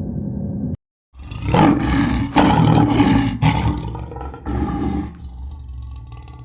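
A large animal roaring: after a steady low rumble cuts off abruptly, a run of loud, rough roars begins about a second in and lasts about four seconds in several pulses, then fades.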